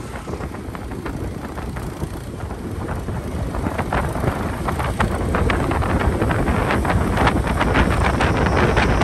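Wind buffeting the microphone on a moving motorcycle, with the engine and road noise running underneath. The rush grows louder about three seconds in.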